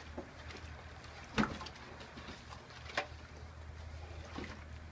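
Wooden spoon stirring soapy liquid in a metal pot, knocking sharply against the pot's side twice, about a second and a half apart, over a low steady hum.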